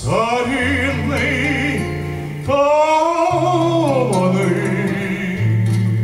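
A man sings with vibrato, accompanying himself on an acoustic guitar, holding one long note in the middle of the phrase. The voice stops about four and a half seconds in and the guitar carries on alone with a new chord.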